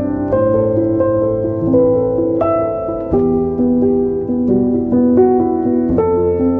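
Instrumental background music: a slow melody of single notes, each struck or plucked and left to ring, over a sustained lower register.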